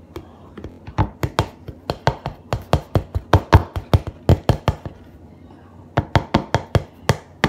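A mixing tool knocking against a plastic container while glitter slime is stirred: a quick run of sharp clicks, several a second. It stops for about a second, then starts again.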